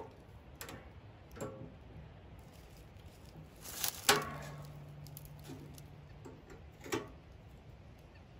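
Scattered metallic clicks and clanks from the steel door and latch of an England's Black Bear Survivor camp stove being worked by hand. The loudest clank comes about four seconds in, followed by a low hum lasting about two seconds.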